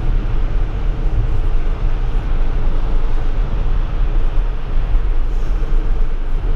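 Steady tyre and road noise heard inside the cabin of a Tesla electric car at highway speed on wet pavement: a constant low rumble with a hiss of tyres on the wet road.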